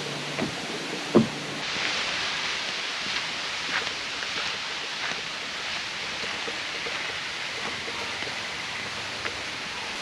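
Steady rushing hiss of water from a rainforest creek and waterfall, rising a little under two seconds in, with a few footsteps knocking on a wooden boardwalk near the start.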